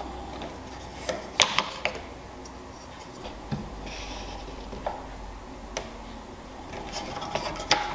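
Wooden parts of a dovetail jig being handled: light clicks and knocks of wood on wood as a saddle square and small boards are moved into place, with a quick cluster of clicks a little over a second in and single taps after, and a soft rub of wood sliding midway.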